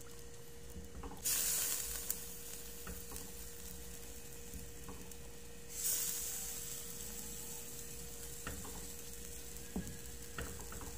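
Hot coconut-milk stew sizzling in a clay pot on a gas burner as moringa leaves go in and are stirred with a wooden spoon. There are two sudden bursts of sizzling, one about a second in and one about halfway through, each fading out, and a few light knocks later on.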